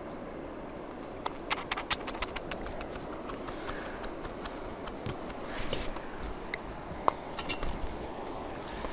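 A quick run of light clicks and taps, bunched from about a second in and scattered after, with one sharper click near seven seconds, over a steady outdoor hiss: hands unhooking a small fish and handling the fishing tackle close to the microphone.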